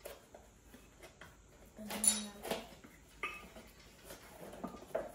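Metal measuring spoons clinking and tapping against a canister, box and mixing bowl while dry ingredients are measured out: a few separate light clinks, the loudest about two seconds in.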